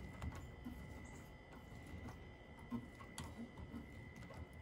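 Faint, scattered ticks and light scrapes of a nut driver turning the screw of the metal strap that clamps a TXV sensing bulb to the copper refrigerant line.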